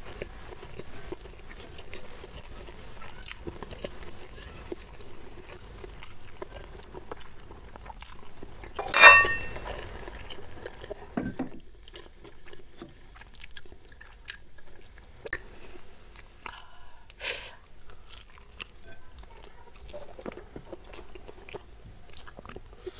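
Close-up chewing of crispy fried chicken and rice, with small irregular wet mouth clicks and crunches. A brief louder sound about nine seconds in, and another near seventeen seconds.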